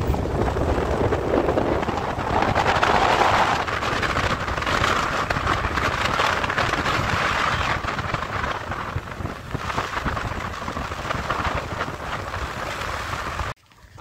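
Wind buffeting the microphone on a moving motorbike, a loud, steady rush with deep road rumble. It cuts off abruptly near the end.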